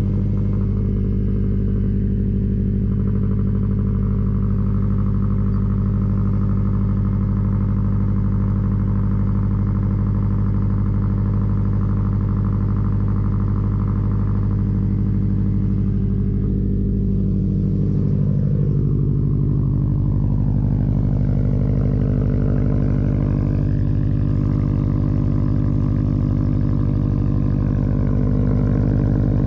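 2013 Subaru WRX STI's turbocharged flat-four running through a Tomei Expreme Ti titanium exhaust, idling steadily; a little past halfway its pitch starts to waver slightly up and down.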